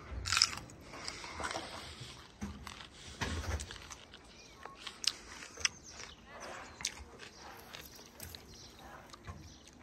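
A person biting into and chewing crisp fresh plums, with irregular crunches and short clicks.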